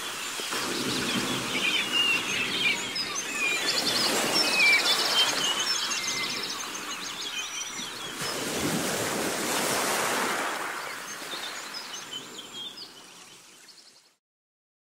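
Small birds chirping and trilling over the rush of waves, which swells and ebbs. The sound fades out to silence near the end.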